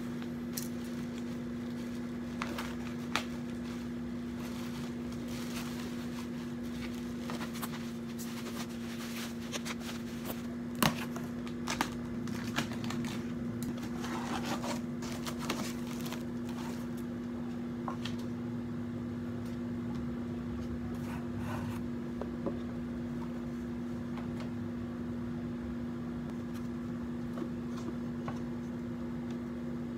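Steady electric hum from a running stand fan's motor, with rustling of foam wrapping and cardboard and a few sharp knocks as a wooden box is unpacked; the rustling is busiest a little past the middle.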